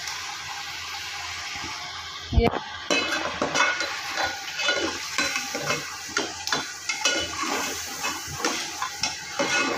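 Chicken pieces sizzling in hot oil in a metal pot, with a sharp knock about two and a half seconds in. A metal ladle then scrapes against the pot in repeated strokes, roughly two a second, as the ground tomato-onion masala paste is stirred through.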